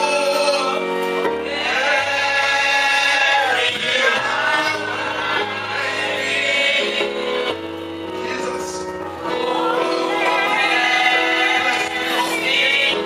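Gospel worship singing with instrumental backing and a bass line that moves from note to note.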